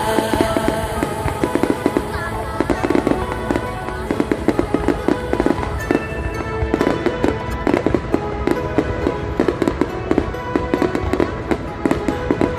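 Fireworks going off in a dense, rapid volley of cracks and pops, many per second and irregular, with music playing underneath.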